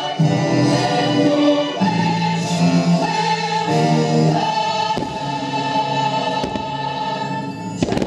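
Orchestral music with a choir singing sustained chords, with three sharp bangs from fireworks in the second half.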